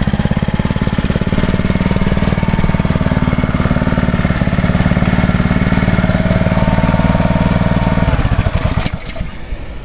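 Honda GCV190 single-cylinder engine on a Ryobi 3100 PSI gas pressure washer running steadily under load while the wand sprays, with a hiss above the engine. About eight seconds in the engine drops in speed and the hiss stops, as the trigger is released and the idle-down takes over.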